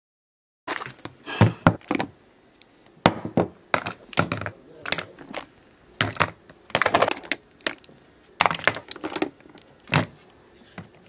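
Plastic and glass makeup items (mascara tube, concealer, foundation bottle, brushes) being picked up and set down on a tabletop: irregular sharp clicks, clacks and knocks, some in quick clusters.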